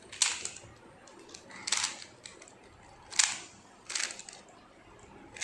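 A plastic 3×3×3 Rubik's cube being scrambled by hand: about four short, sharp clicking turns of its layers, spaced a second or so apart.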